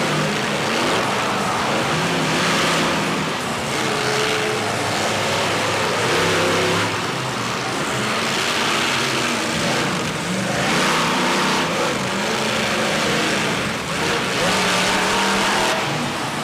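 Monster truck engine revving hard, its pitch rising and falling again and again, over a steady dense noise.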